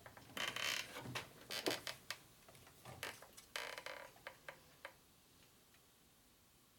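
Metal clicks, taps and short scrapes as the tool post and threading tool bit of a metal lathe are shifted and set by hand to bring the bit on center. The handling stops about five seconds in.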